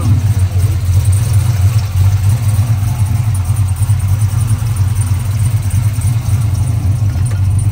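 Pickup truck's LS V8 engine idling steadily.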